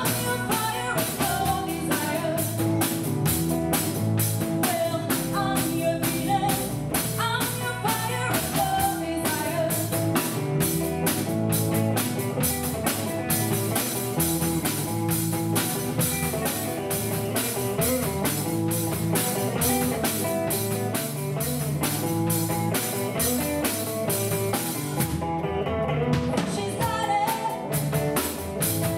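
Live rock band playing: a woman singing over electric guitar, bass guitar and a drum kit keeping a steady beat. The cymbals drop out for about a second near the end.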